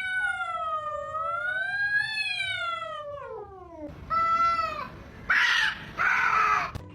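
Domestic cat giving a long, drawn-out yowl of about four seconds that wavers in pitch and slides down at the end. It follows with a short meow and then two louder, rougher calls.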